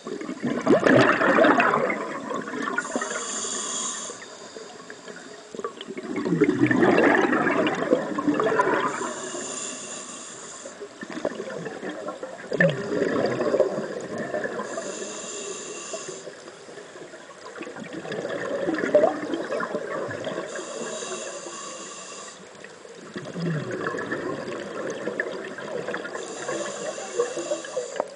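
Scuba diver breathing through a regulator underwater: about every six seconds a bubbling rush of exhaled air, followed by a shorter hiss as the regulator delivers the next breath, five breaths in all.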